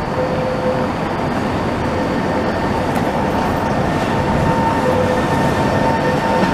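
Tatra T3 trams rolling along the rails through a curve and coming closer, growing slowly louder. A steady squeal from the wheels in the curve is held over the rumble.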